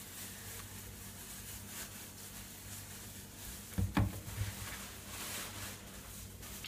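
A low steady hum, with a brief bump and crinkle about four seconds in as a plastic bag of roasted peanuts is handled.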